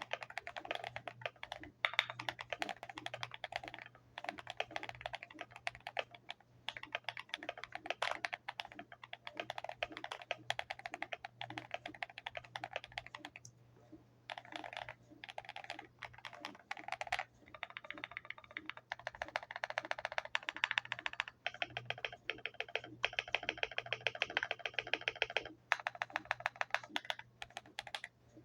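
Typing on a modded GMMK Pro mechanical keyboard with lubed Akko Vintage White linear switches, a polycarbonate plate, PE foam, tape mod and tuned, lubed screw-in stabilizers: a steady run of keystrokes, pausing briefly about halfway through and again near the end. A faint low hum sits underneath.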